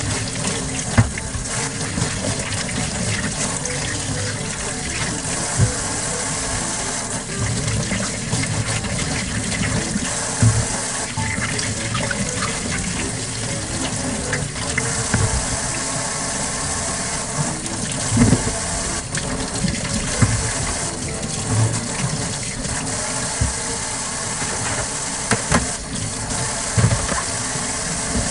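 Kitchen tap running steadily through a spray aerator into a stainless steel sink as ears of corn are rinsed under it, with scattered knocks as the cobs are handled.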